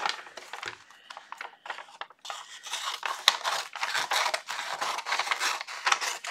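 Scissors snipping through a large sheet of thin diamond-painting cover paper, with the paper rustling and crinkling as it is moved.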